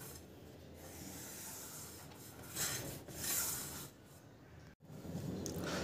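Hands rubbing and pressing around a subwoofer's paper cone and rubber surround to seat the freshly glued cone; a faint dry rubbing, with two louder strokes about midway.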